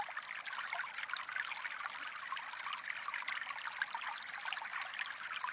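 Steady sound of running water, like a small stream trickling and babbling.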